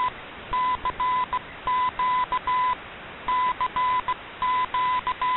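Morse code sent as a tone of about 1 kHz, keyed in dashes and dots that spell out "CQ DX", heard over steady shortwave hiss from an AM broadcast received on an Icom IC-R8600 shortwave receiver.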